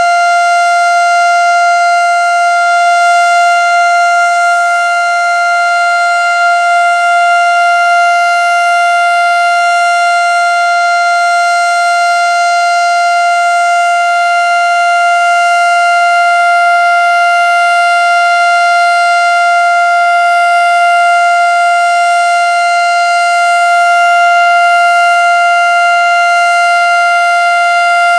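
Federal Signal STH-10A electromechanical outdoor warning siren sounding its steady alert tone during a three-minute test cycle: one loud, high, single-pitched tone held at full speed, swelling slightly in loudness now and then.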